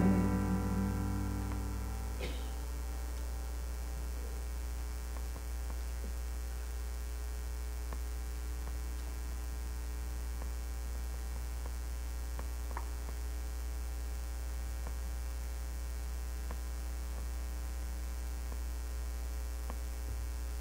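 The last acoustic guitar chord rings out and fades over the first two seconds, leaving a steady low electrical mains hum in the audio feed, with a few faint taps.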